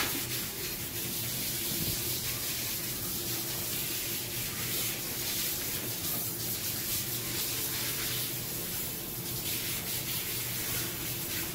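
Water running steadily from a dog-wash sprayer hose in a tiled tub.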